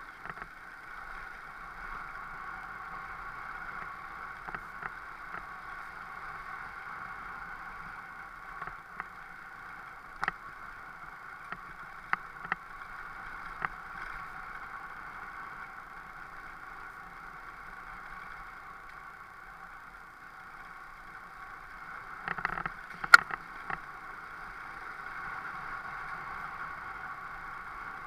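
Motorcycle running steadily over a rough, rocky dirt track, with engine and riding noise picked up by a camera mounted on the bike. Scattered sharp knocks of stones and the bike jolting break through, with a cluster about two-thirds of the way in that holds the loudest knock.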